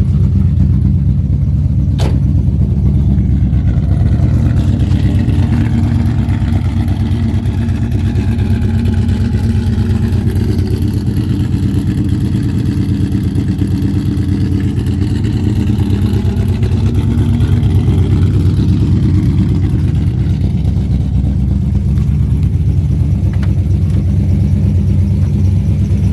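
Iron-block 6.0 V8 in a 1998 Pontiac Trans Am WS6, with long-tube headers and a full exhaust, running at a steady idle just after a cold start, warming up. It sounds healthy. A single short click about two seconds in.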